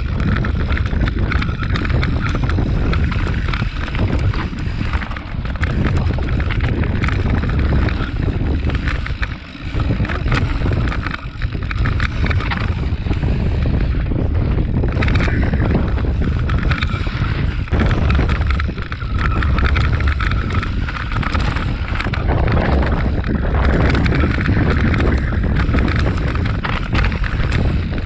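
Mountain bike descending a gravel trail, heard from a bike-mounted camera: wind buffeting the microphone over the steady noise of tyres rolling on loose gravel, with many small knocks and rattles as the bike goes over bumps.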